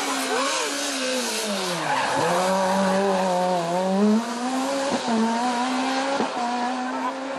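Fiat Punto rally car's engine at speed. The revs swoop up and down, then drop sharply about two seconds in and climb and hold as the car pulls away. Two sharp cracks come in the second half.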